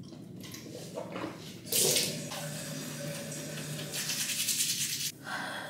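Water running from a bathroom tap into a sink, starting with a sudden gush about two seconds in and stopping shortly before the end.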